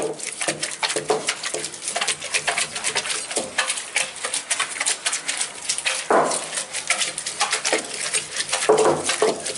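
Stone pestle knocking and scraping against the stone basin of a hand-worked aattukkal grinding stone as raw masala ingredients are crushed: a rapid, irregular clatter of stone-on-stone clicks.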